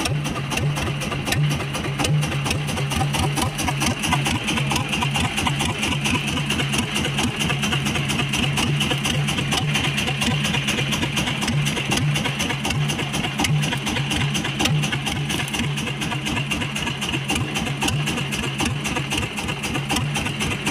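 Small boat engine running steadily with an even, unbroken beat.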